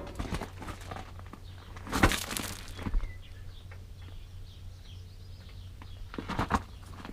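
Scattered metallic knocks and clatter from working a grease joint rejuvenator on a stubborn, dry grease fitting: a sharp knock at the start, a cluster about two to three seconds in and another near the end, over a steady low hum.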